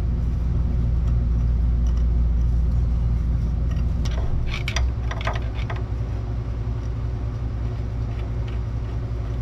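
Steady low mechanical hum, with a short run of light metal clinks about halfway through as parts are worked into place under the car.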